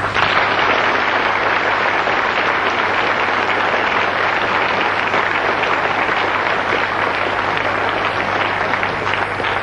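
Audience applauding: dense, steady clapping that starts abruptly and thins slightly near the end.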